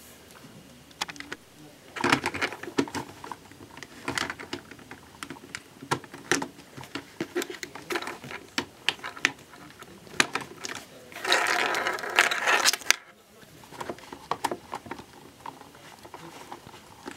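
Hard plastic Lego Technic parts being handled and snapped together: a run of irregular sharp clicks and rattles, with a denser, steadier stretch of about two seconds past the middle.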